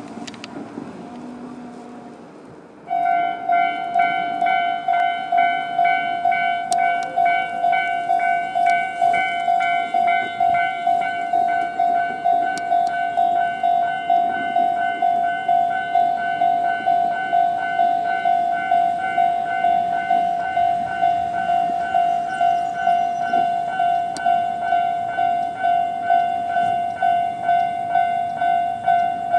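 Japanese railway level-crossing electronic warning bell starts about three seconds in and rings a steady repeating tone, about two strokes a second, the crossing's standard alarm warning of an approaching train.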